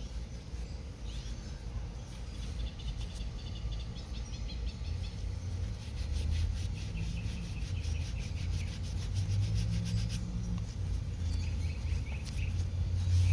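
Hand scrubbing or rubbing on a motorcycle exhaust pipe to get the dirt and oil off it, with a quick, even run of strokes about six to eight seconds in. Birds chirp faintly behind it over a steady low hum.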